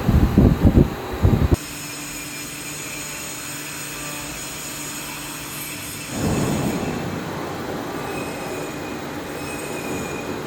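5-axis CNC machine running and cutting, with a steady high whine and squeal over cutting noise. Loud irregular rumbling in the first second and a half cuts off suddenly. A louder rush of cutting noise comes in about six seconds in.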